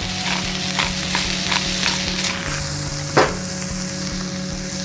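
Smash burger patties sizzling on a flat griddle top: a steady frying hiss with scattered crackling pops, and one sharper click about three seconds in.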